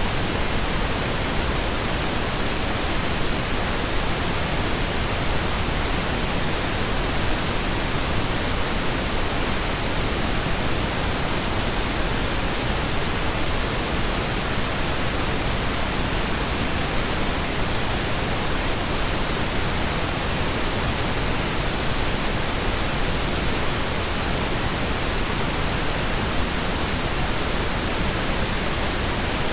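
Steady pink noise: an even, unchanging hiss with more weight in the low end than the high.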